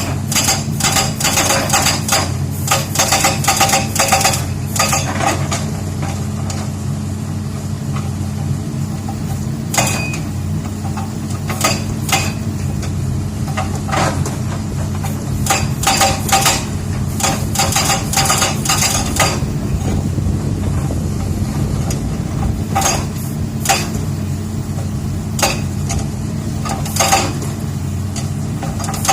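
Excavator's hydraulic rock breaker hammering rock in bursts of rapid blows, several seconds each with pauses between, over the steady running of the excavator's diesel engine.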